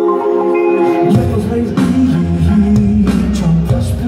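Live indie band music recorded from the audience: a held melodic line over keys, then bass and drums come in about a second in and the music carries on full and loud.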